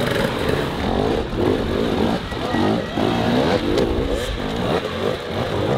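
Dirt bike engines revving up and down in short, rapid throttle bursts as they claw over rocks, more than one bike at once.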